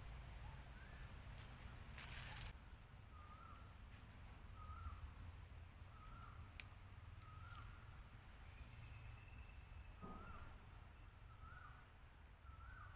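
Faint outdoor ambience with birds calling, short calls repeating about once a second alongside faint high chirps. A brief rustle comes about two seconds in and a single sharp click about halfway through.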